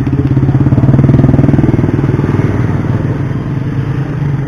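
Small electric ice shaver running with a steady buzzing motor while it shaves a block of ice. It is loudest about a second in and eases off toward the end.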